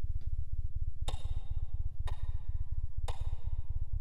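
Film score: a steady low pulse under a bright, ringing metallic strike once a second, three strikes from about a second in, each dying away within half a second.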